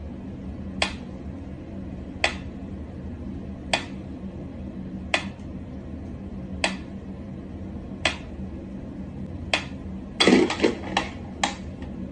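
Wind-up pyramid metronome ticking slowly, one sharp tick about every second and a half. Near the end comes a quick irregular run of clicks and a knock.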